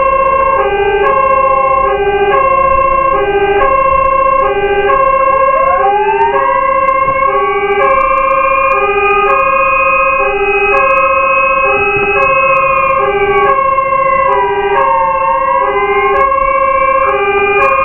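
Fire engine sirens on an emergency run: a two-tone hi-lo siren switching pitch about once a second, with a wailing siren that winds up about five seconds in, holds high, dips near the end and rises again.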